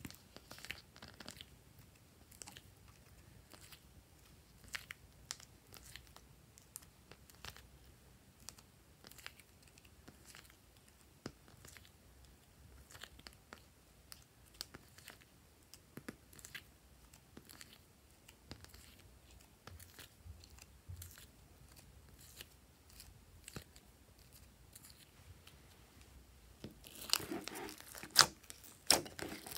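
Soft scattered clicks and sticky taps as small clay cubes and shapes are picked out of slime by hand. Near the end, louder dense crackling and squishing as hands press the pieces into glossy white slime.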